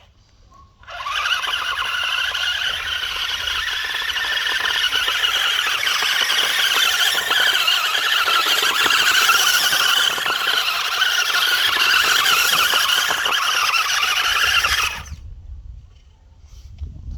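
Radio-controlled Volkswagen Race-Touareg model on a CC-01 chassis running, its electric motor and gears giving a steady high whine. The whine starts about a second in, holds for some fourteen seconds and cuts off suddenly.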